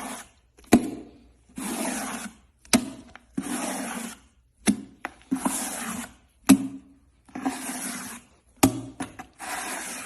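Rasping rubbing strokes, each under a second long and coming about every two seconds, with a sharp click or snap in the gap after each stroke: a close-miked ASMR crackling sound.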